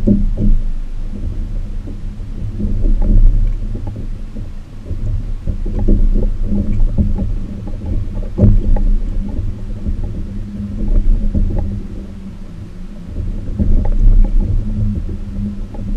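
Kayak under way on a Torqeedo electric outboard: a low rumble of water and wind on the microphone that swells and fades every few seconds, over a faint steady hum, with scattered light ticks.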